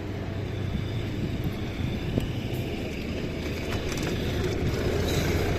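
Steady street traffic with a low, constant engine hum from a nearby vehicle, and wind rushing over the microphone of a moving bicycle; the sound grows slightly louder near the end.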